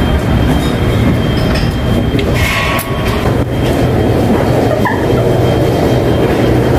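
Loud, steady mechanical rumble of a busy ship's galley, machinery and ventilation running, with a few short clinks about two and a half and three and a half seconds in.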